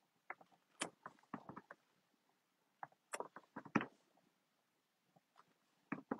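Clear acrylic stamp block tapping down onto card stock on a tabletop: light knocks and clicks in clusters, the first about a second in and a louder group around three to four seconds in, with another pair near the end.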